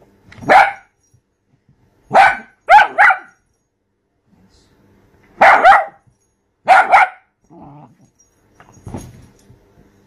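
Small dapple dachshund barking at a lemon half held out to it: about eight sharp, loud barks, singly and in quick pairs, with a couple of fainter sounds near the end.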